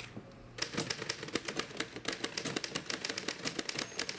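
Typewriter being typed on: rapid, irregular key strikes that begin about half a second in and run on without a pause.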